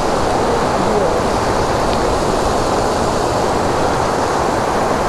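Fast mountain stream rushing over rocks: a steady, loud wash of white water.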